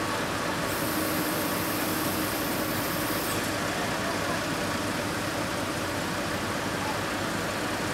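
Large forklift's diesel engine running steadily under load, with a high hiss joining for about three seconds a second in.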